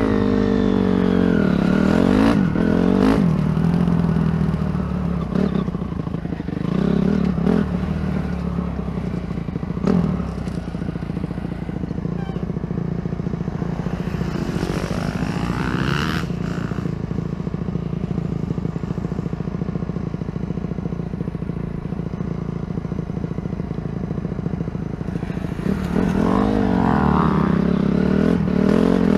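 Motocross dirt bike engine running under the rider, revs rising and falling as it rides the dirt track, steadier in the middle and louder with quick rev changes again near the end.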